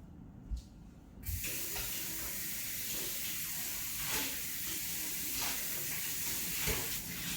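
A steady rushing hiss of running or spraying water starts suddenly about a second in and keeps going, with a few faint knocks over it.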